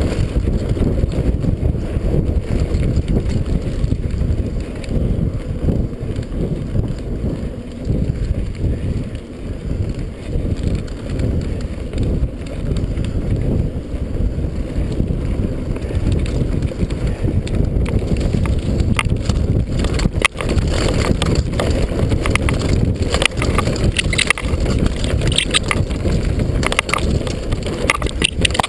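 Mountain bike descending a dirt singletrack at speed: a steady low rumble of wind on the microphone and tyres on dirt. From about twenty seconds in, frequent sharp rattles and clicks as the bike jolts over rough ground.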